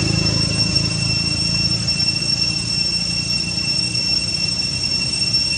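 Steady high-pitched insect drone, two unchanging shrill tones, with a low hum underneath that fades out about two seconds in.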